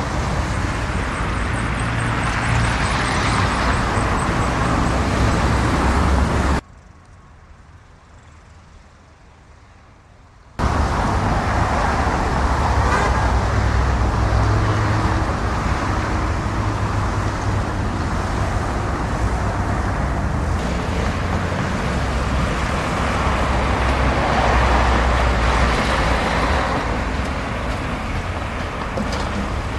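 Road traffic noise: a steady, dense rumble of vehicles. About a third of the way through it drops to a much quieter hush for about four seconds, then comes back at the same level.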